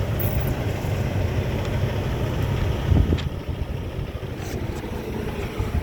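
Semi truck's diesel engine running steadily at low revs during low-speed manoeuvring, with a single knock about three seconds in.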